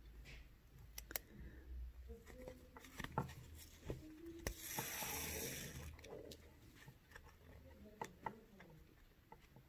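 Faint handling sounds of bead embroidery: a needle and thread worked through seed beads and felt, with a few light clicks and, about halfway through, a soft rustle lasting a little over a second.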